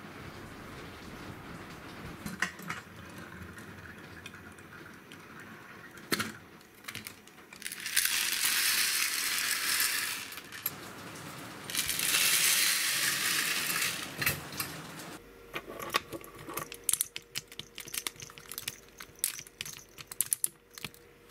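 Small gravel stones pouring and clattering out of a toy dump truck's tipping bed onto a wooden surface, in two pours of about two seconds each. Near the end come many small clicks and taps of plastic toy parts being handled.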